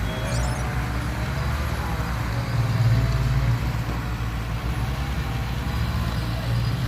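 Heavy diesel earthmoving machinery running steadily at a low, even drone, swelling slightly about three seconds in.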